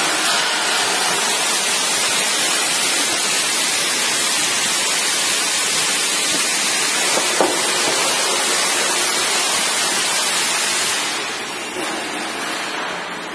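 Electric bone saw machine running and cutting, a steady loud hiss that eases off near the end.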